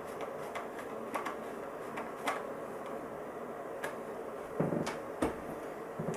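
Scattered light clicks and ticks from a screwdriver snugging up the wingtip screws on a foam wing, with a few louder dull knocks about four and a half to five seconds in as the wing is handled.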